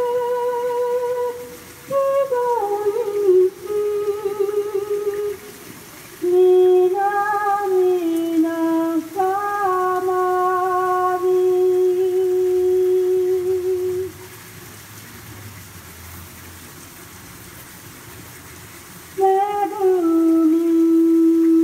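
A woman singing solo and unaccompanied, holding long notes with vibrato. The phrases break off briefly twice, then there is a pause of about five seconds before she starts again near the end.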